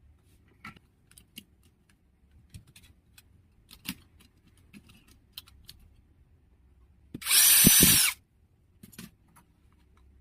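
A small handheld power tool's motor, such as an electric screwdriver, spins up, runs for about a second with a high whine and winds down, about seven seconds in. Before and after it come light clicks and taps of tools and parts being handled.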